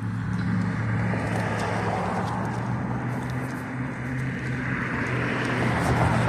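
Road traffic: car engines running with tyre and road noise, growing louder in the last couple of seconds as a vehicle approaches.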